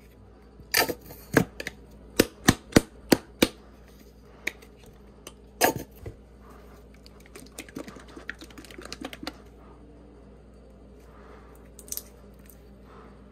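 Sharp clicks and knocks of condiment squeeze bottles and their caps being handled over a mixing bowl: a quick run of about six in the first few seconds, one louder knock near the middle, then lighter ticks.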